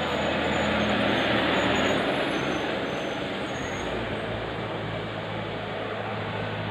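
Bus driving past with engine and road noise, loudest about one to two seconds in, then a steady low engine hum.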